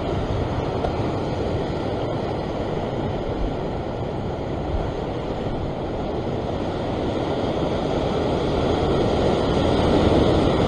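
Rough sea surging and breaking against a rock ledge, a steady rush of surf mixed with wind noise on the microphone, growing louder toward the end.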